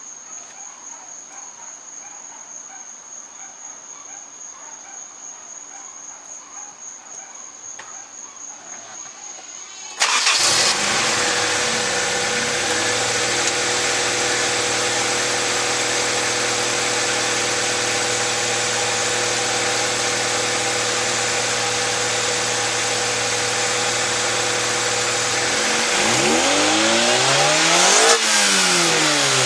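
Crickets chirping in a steady pulsing trill for about ten seconds. Then a Honda B20B four-cylinder engine suddenly starts and settles into a steady idle, with one rev up and back down near the end. It runs evenly with no misfire now that the distributor rotor has been replaced.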